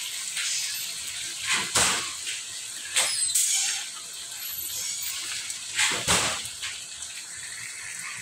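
Shredded adobo meat sizzling in oil in a wok, a steady hiss. A few brief louder clatters come about two, three and six seconds in.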